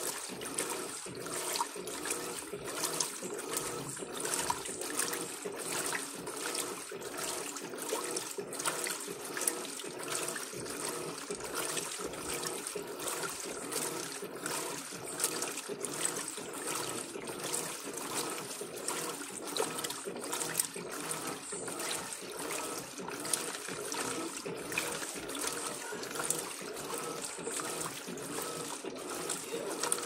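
Water and clothes sloshing and churning in the drum of an Electrolux 15 kg top-loading washing machine as its agitator works the load during the wash cycle; a steady, irregular swishing.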